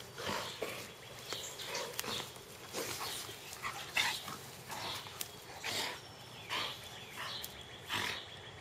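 Two dogs play-fighting, making a run of short, irregular growls and snarls as they wrestle.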